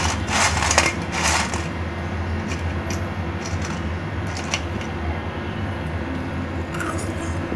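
Crisp deep-fried thenkuzhal (rice-flour murukku) crackling and crunching as fingers break and crush it in a steel plate. There are three loud crunches in the first second and a half, then scattered lighter crackles. The dry crunch is the sign that it has fried crisp, and a steady low hum runs underneath.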